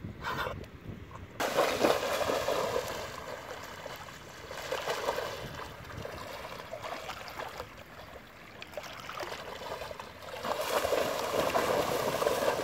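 Weimaraner dogs wading and running through shallow water, their legs splashing and sloshing. The splashing is loudest from about a second and a half in and again from about ten seconds on, quieter in between.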